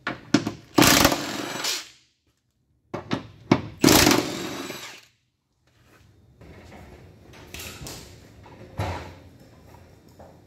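Cordless power tool running in two bursts of about a second each, backing out the battery pack's middle mounting bolts on a Nissan LEAF. Softer handling noise follows, with a sharp knock near the end.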